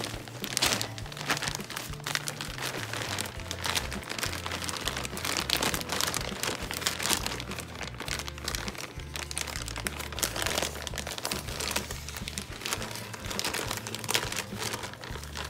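Thick plastic potting-mix bag crinkling and rustling continuously as hands grip it and pull it open at the corner. Background music plays underneath.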